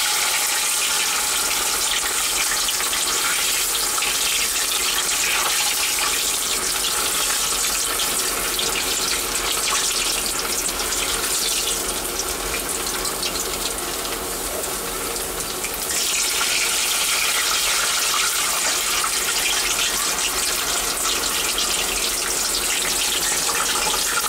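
Batter-coated, chicken-stuffed potato pieces deep-frying in hot oil over a low flame: a steady, dense sizzle of bubbling oil, softening a little for a few seconds midway.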